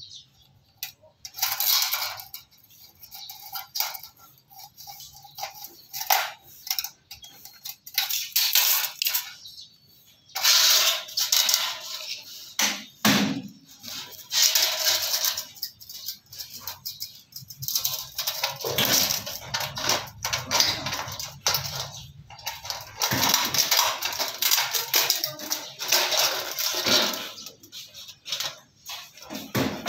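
Hollow PVC spandrel ceiling panel being handled and cut with aviation snips: irregular crunching snips and plastic rattling and scraping against a tile floor, in uneven bursts with short pauses between.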